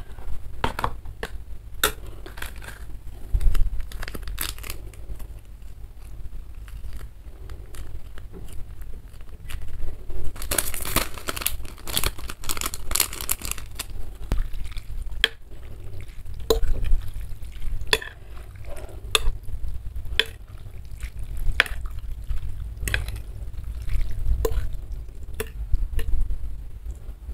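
Spoon and fork clicking and knocking against a ceramic noodle bowl, with a stretch of plastic seasoning sachet crinkling and tearing about ten seconds in, and soupy instant noodles being stirred with a spoon and fork near the end.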